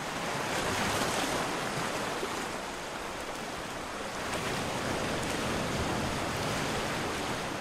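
Sea water sloshing and splashing at the surface around a swimmer, a steady rushing wash without music or voice.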